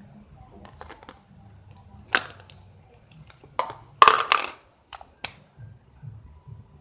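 A plastic slime tub and its slime being handled: a few sharp clicks and snaps, the loudest a quick cluster about four seconds in.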